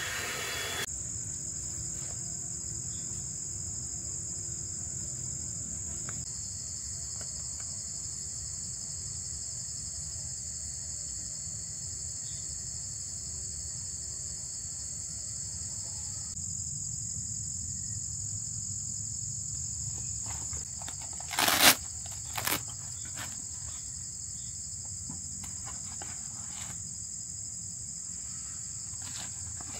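Insects, crickets by their sound, trilling in a steady high-pitched chorus. Two sharp knocks about three-quarters of the way through are the loudest sounds.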